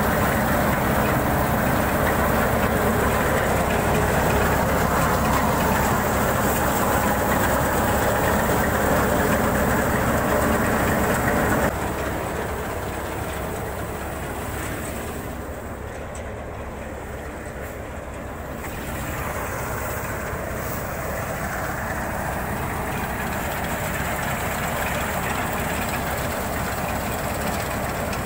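Tractor-driven Malwa threshing machine running under load, a steady loud rattle and hum from the thresher and the Swaraj 834 XM tractor powering it. The sound drops suddenly about twelve seconds in, then slowly grows louder again.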